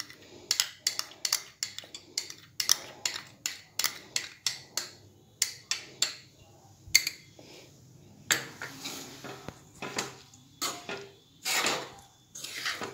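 Metal spatula knocking and scraping against a metal kadai while mixing oil into a radish-and-carrot pickle: a string of sharp clinks, two or three a second, with a few longer scrapes in the second half.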